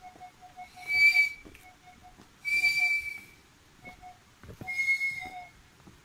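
Three high whistles, each under a second long and about a second and a half apart, with short, soft low pips repeating between them.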